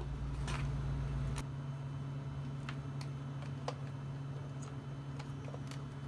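A steady low hum with scattered light ticks; a deeper rumble under it cuts off about a second and a half in.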